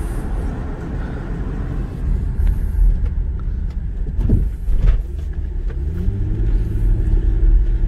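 Exhaust note of a 2004 Infiniti FX35's 3.5-litre V6 running, a steady low rumble; a steadier low hum settles in about six seconds in.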